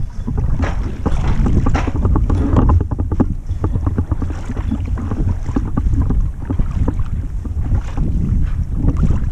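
Wind buffeting the microphone with a constant low rumble, over the splash and drip of a double-bladed kayak paddle dipping in and out of the water on alternate sides.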